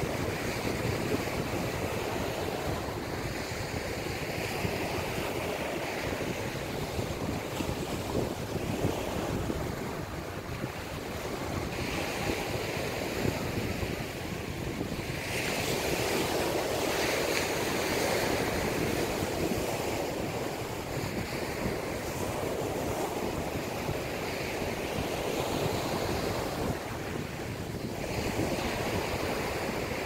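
Small ocean waves breaking and washing up the beach: a continuous surf rush that swells and eases every few seconds, with some wind rumble on the microphone.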